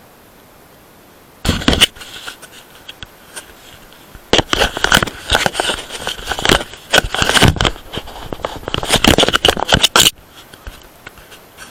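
Plastic wrappers of Parle-G biscuit packets crinkling and crackling as they are handled close to the microphone. The sound starts about a second and a half in and is dense and irregular, louder in the second half, and stops near the end.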